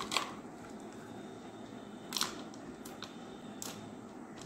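Pinches of crushed cashew and almond pieces dropped by hand into plastic ice-cream tubs and a plastic kulfi mould. Three light clicks, about a second and a half apart, over faint room noise.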